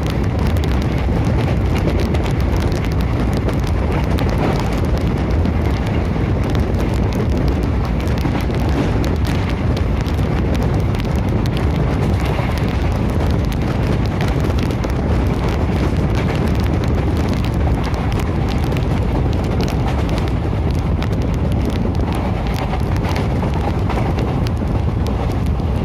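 Passenger train running at speed, heard from aboard: a steady rush of wind and wheel-and-track noise, peppered with many small irregular clicks and rattles.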